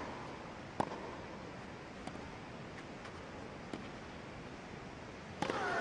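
Tennis rally on a grass court: sharp racket-on-ball hits, four of them spaced one to one and a half seconds apart, over a hushed stadium crowd. Near the end a crowd reaction starts to rise.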